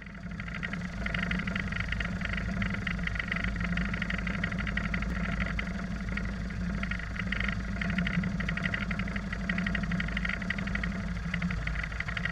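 Single-engine light aircraft's piston engine idling steadily, a low drone with a fast even pulsing.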